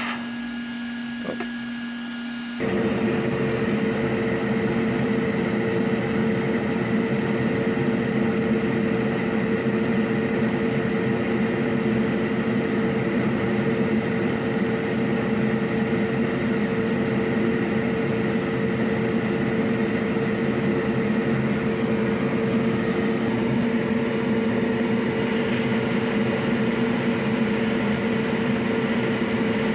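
Small electric blower or motor running with a steady whirring hum, switched on about two and a half seconds in.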